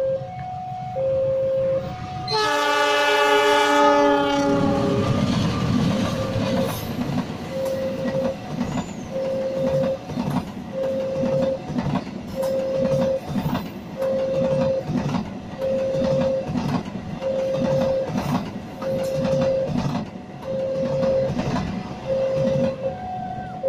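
A train sounds its horn for about two and a half seconds, then passes close by with its wheels clacking rhythmically over the rail joints. Through it all a level-crossing warning alarm beeps steadily, about once every second and a bit.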